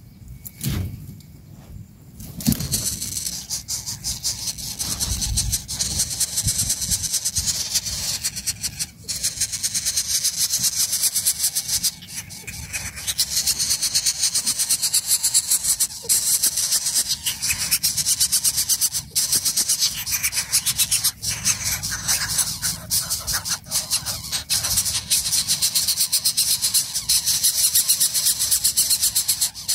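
Greater coucal chicks begging with a continuous high-pitched rasping hiss, starting abruptly a couple of seconds in, as the adult comes to feed them.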